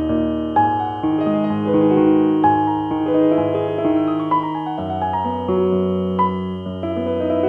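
Background piano music: a gentle melody of held notes.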